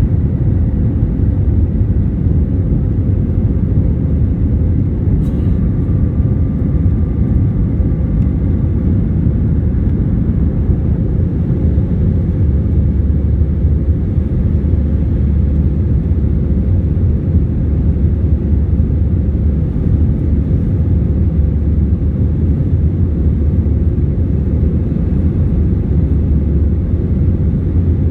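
Airbus A320 cabin noise during the climb after takeoff, a steady deep rumble of the jet engines and airflow heard from a window seat. A brief click comes about five seconds in.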